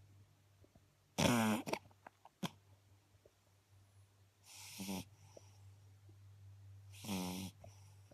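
Eight-week-old beagle puppy snoring in her sleep: three loud snores about three seconds apart, each about half a second long, the first the loudest and followed by a few small clicks.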